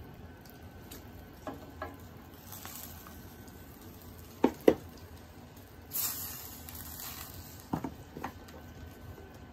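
Salmon fillets being set with a spatula into a stainless steel pan of simmering vegetables in soy sauce. Sharp clinks of the utensil against the pan come in three pairs, the loudest about four and a half seconds in, and a brief sizzle rises about six seconds in as the fish meets the hot liquid.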